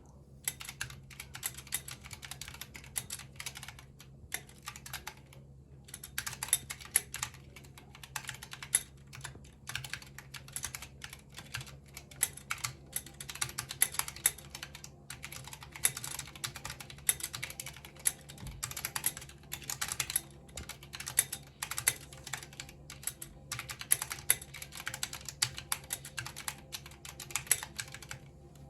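Typing on a mechanical keyboard: fast, continuous key presses with a few brief pauses, over a faint steady hum.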